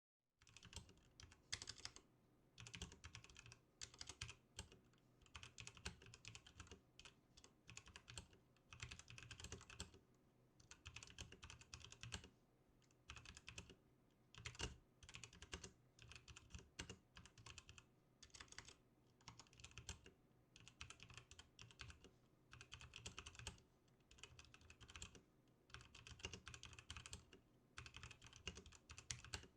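Typing on a Tyrfing V2 87/88-key mechanical keyboard: quick runs of key clicks and clacks lasting a second or two, with brief pauses between them, recorded faintly.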